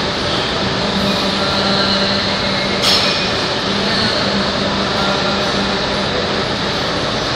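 Steady rush and hum of a gym's ventilation, with one sharp click or clank about three seconds in.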